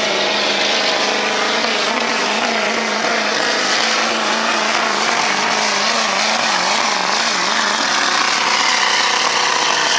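2002 Ford F-350's 7.3-litre Powerstroke turbo-diesel V8 running flat out under heavy load as the pickup drags a weight-transfer pulling sled. The engine note is steady and loud, its pitch wavering slightly.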